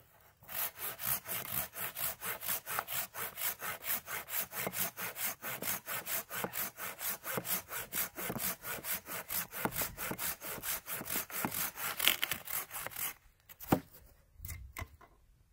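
Silky pruning saw cutting through a green aspen pole by hand, in quick, even push-pull strokes. The strokes stop as the cut goes through, about two seconds before the end, and a single knock follows.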